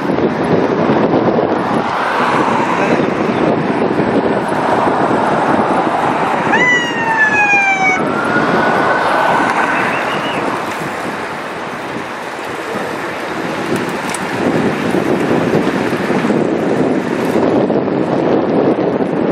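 Wind buffeting the microphone and road noise from a moving vehicle. About seven seconds in, a siren sounds for roughly three seconds, gliding in pitch.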